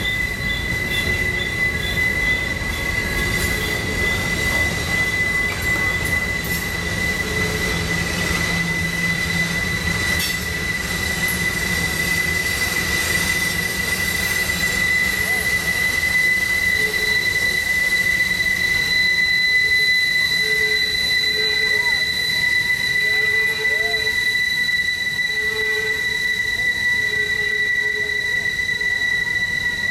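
Freight train's tank cars and flatcars rolling past on a sharp curve, their steel wheels squealing against the rails in one steady high-pitched tone over the rumble of the wheels on the track.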